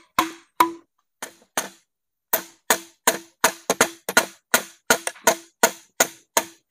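Hammer driving nails, a steady run of sharp blows about three a second, each with a short ringing note. The first few blows come more slowly, with brief pauses between them.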